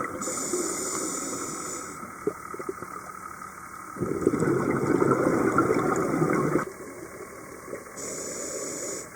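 Scuba diver breathing through a regulator underwater: a hissing inhale, then about four seconds in a loud spell of exhaled bubbles lasting a couple of seconds, then another hissing inhale near the end.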